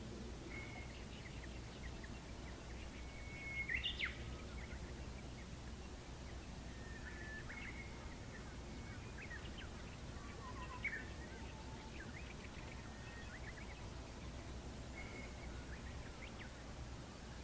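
Birds calling off and on with short chirps and whistled notes, the loudest about four seconds in, over a steady low background rumble.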